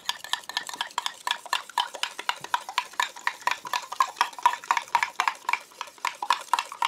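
Wooden stirring stick worked briskly in an aluminium cooking pot, knocking against the metal several times a second, each knock with a short metallic ring.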